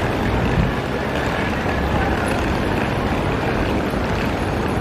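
Steady city street noise with a low wind rumble on the microphone.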